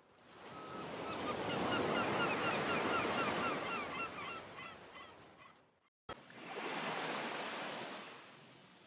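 Sea surf washing, with birds calling in a quick run of short chirps, several a second, over the first half as the sound fades in. About six seconds in it cuts off abruptly with a click, and surf goes on alone, fading down.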